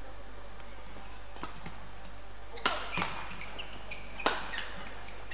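Badminton rally: rackets striking the shuttlecock in a quick exchange, about five sharp hits with the loudest two near the middle and towards the end. Short high squeaks from shoes on the court mat sound between hits.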